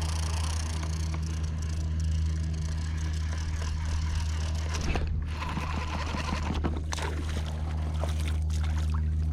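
Water gurgling and sloshing, with brief louder splashy noises about 5 and 7 seconds in, over a steady low hum.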